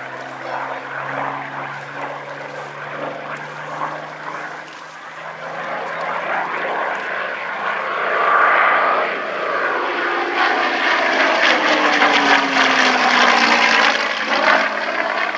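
Rolls-Royce Merlin V12 engine of a Hawker Hurricane IIC in flight, making a pass: the engine grows louder about halfway through and its pitch drops as it goes by.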